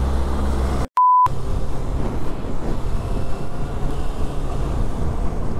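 A short steady beep tone, about a quarter of a second, is edited into the soundtrack about a second in, just after a brief dropout. Around it a Kawasaki Ninja ZX-6R runs steadily on the move, with road and wind noise picked up by a helmet microphone.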